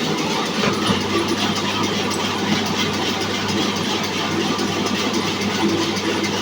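Electric horizontal band sawmill running steadily, with a constant motor hum under an even mechanical noise.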